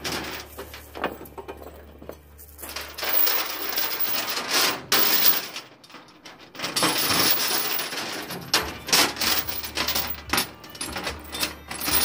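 Steel chain clinking and rattling against a metal trailer deck and the car's front end as it is handled and hooked up, with scattered sharp metallic knocks and two busier stretches of clatter, about three and seven seconds in.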